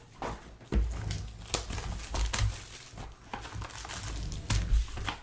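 Plastic shrink wrap on sealed trading-card boxes crinkling and tearing as it is handled and pulled off, in irregular bursts with a few soft thumps.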